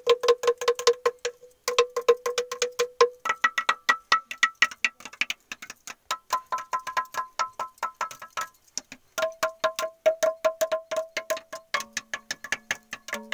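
Rapid, rhythmic tapping on resonant cave rock formations ('sounding stones'), each strike ringing out with a clear chime-like pitch. The pitch shifts several times as different stones are struck: a lower ring at first, higher rings in the middle, and a deeper one near the end.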